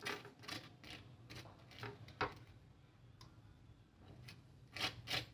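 Table knife scraping and tapping on crisp grilled toast and the ceramic plate while chutney is spread: faint, irregular clicks and scrapes, a few louder ones near the end.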